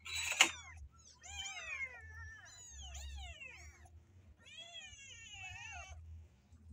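Young kittens meowing: a few overlapping, rising-and-falling cries in the first half, then one long meow near the end. A short, loud burst of noise comes right at the start.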